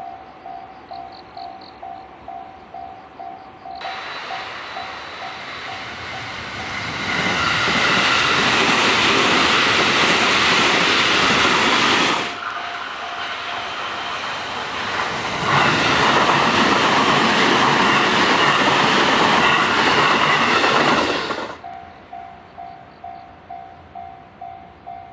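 Japanese level crossing warning bell clanging about three times a second, then two JR West commuter electric trains passing one after the other, each drowning out the bell with loud wheel and rail noise. The bell rings on alone near the end.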